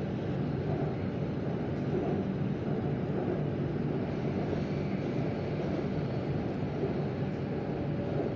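MRT Blue Line electric metro train running steadily between stations, a low, even rumble of wheels and running gear heard from inside the car.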